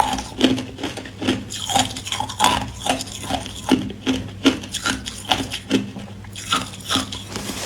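Hard clear ice being chewed close to the microphone: crisp crunches, about two a second.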